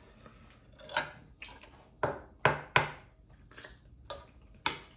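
Cutlery clinking and scraping against plates during a meal: about seven sharp clinks, the loudest three coming quickly one after another a little over two seconds in.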